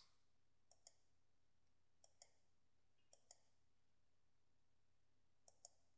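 Faint computer mouse clicks: four clicks, each a quick press-and-release pair, spaced a second or more apart.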